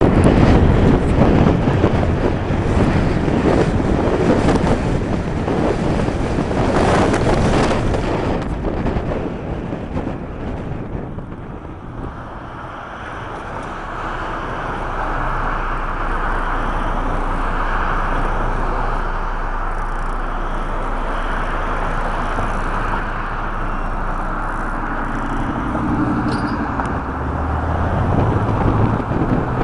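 Road and wind noise of a car driving, heard from inside the moving vehicle: gusty buffeting over the first ten seconds or so, then a steadier rush of tyres and engine hum.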